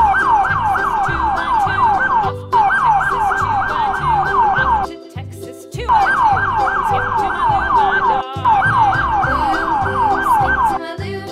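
Fast yelping emergency-vehicle siren, about four quick pitch sweeps a second, in four bursts with short breaks between, over children's background music with a steady beat.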